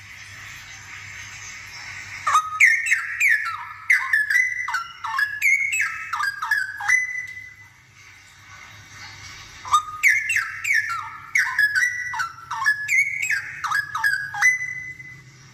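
Straw-headed bulbul singing: two loud runs of rapid, bubbling whistled notes, each lasting about five seconds, with a pause of about three seconds between them. Softer warbling comes before the first run.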